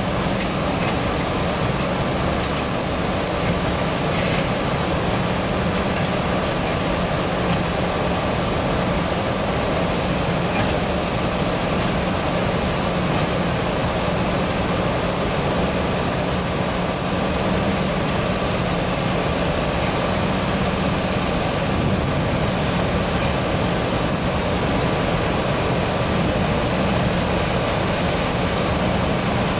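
Steady roar of steam escaping from an Orenstein & Koppel fireless steam locomotive as it shunts slowly, with no beat of exhaust and no clear separate sounds.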